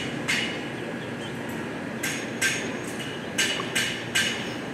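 A series of sharp, irregular metallic clinks, about six of them, over a steady rumbling background noise.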